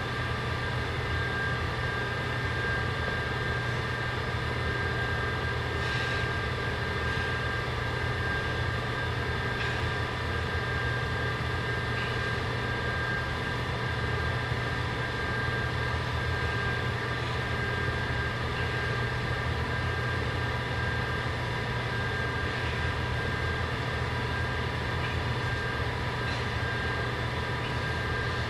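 Steady machine hum with several steady high tones over it, and a few faint clicks.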